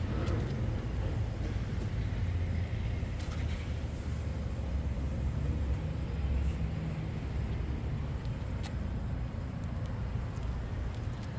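Honda CRF1000L Africa Twin's 998 cc parallel-twin engine running steadily at low revs through an aftermarket Akrapović exhaust, a deep, even note with slight swells in level.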